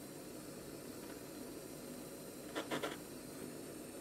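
Gas torch flame hissing steadily while heating aluminium for brazing with aluminium brazing rod, with three quick light taps about two and a half seconds in.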